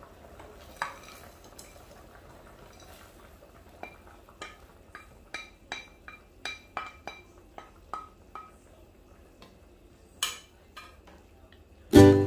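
Wooden spatula scraping and tapping a ceramic bowl as peas are tipped from it into an enamelled cast-iron pot: a run of short ringing clinks, about two or three a second, in the middle, then one louder knock near the end.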